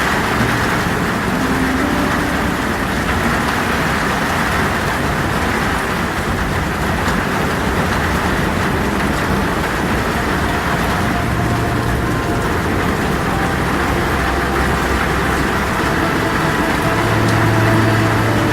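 Heavy rain falling steadily on a tin roof, with a continuous low storm rumble underneath. Faint low wind tones come and go.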